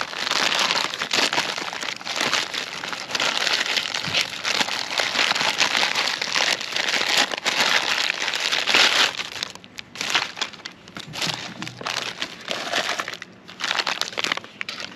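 Plastic MRE ration packaging crinkling and rustling as it is pulled open and handled. It is dense and continuous for most of the time, then breaks into sparser rustles over the last few seconds.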